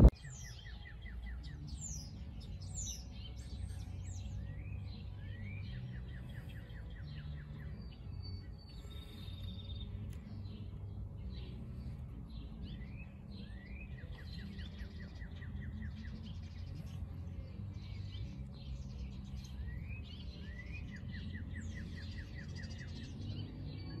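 Small songbirds chirping throughout, with short high sweeping calls and several rapid, evenly ticking trills, over a low steady rumble.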